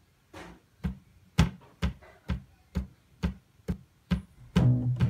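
A steady beat of sharp clicks, each with a low thump, about two a second. Near the end, low bass notes come in on top of it.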